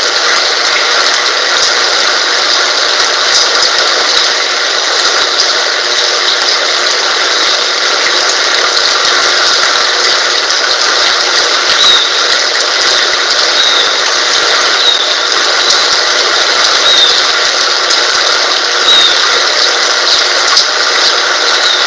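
Steady, loud hiss of falling rain. From about halfway through, short high chirps recur every second or two.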